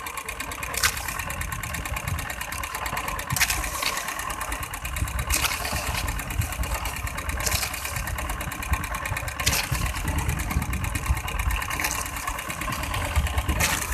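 Small fishing boat's engine running steadily at idle, a fast even putter, with a short sharp noise every two seconds or so.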